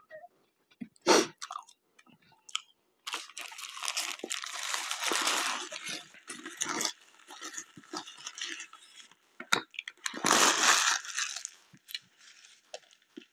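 A McDonald's paper burger wrapper crinkling as it is unwrapped. A long spell of rustling starts about three seconds in, and a shorter, louder one comes near ten seconds, after a few brief chewing sounds at the start.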